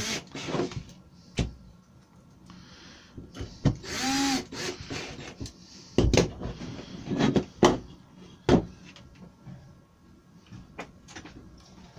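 Cordless drill driving screws into a concealed hinge on a chipboard cabinet door in short runs, the motor speeding up and slowing in one run. This is followed by several knocks as the drill is set down and the board is handled on the bench.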